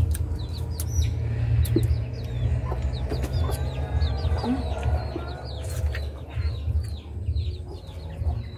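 Chickens clucking, with many short, high calls repeating throughout, over a steady low rumble.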